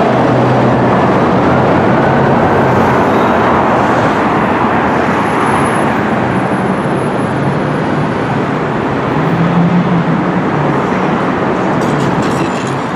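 Fire engine responding, heard as loud, steady engine and road noise, with its siren wail fading out in the first few seconds.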